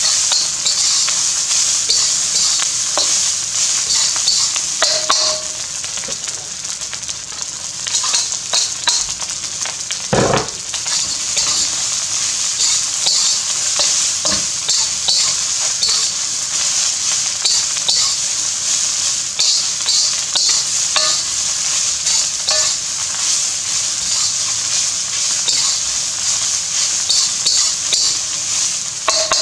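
Bacon and egg fried rice sizzling in a hot wok while a metal spatula stirs and tosses it, with frequent scrapes and clicks of metal on the wok. One heavier knock about ten seconds in.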